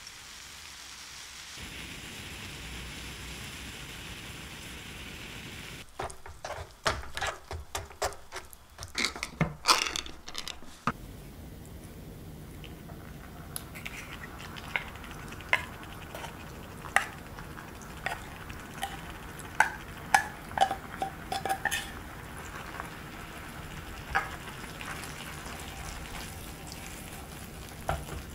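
Chili-paste sauce sizzling softly in a small saucepan, with a wooden spatula and spoon clicking and scraping against the pan and a tuna can. A dense flurry of clicks comes about a third of the way in, then scattered knocks as canned tuna is spooned into the sauce and stirred.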